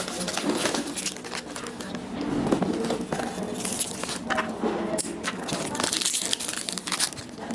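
Crinkling and rustling with scattered small clicks and knocks, the sound of things being handled.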